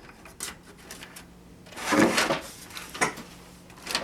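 A hard drive being pushed into a desktop PC case among its cables: scattered clicks and knocks of plastic and metal, with a louder rubbing scrape about two seconds in.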